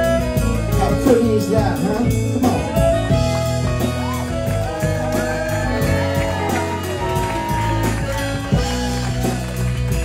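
Live rock band playing an instrumental passage: a steady bass and drum groove with a lead line that bends and slides in pitch over the top.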